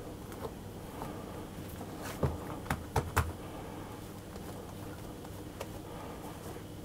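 Hands rolling up and pressing bread dough on a work surface: quiet handling sounds, with a quick run of four light knocks about two to three seconds in.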